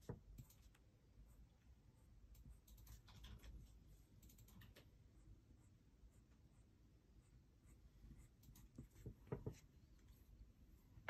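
Faint scratching of a black colored pencil on paper, making short little strokes, in small bursts a few seconds in and again near the end.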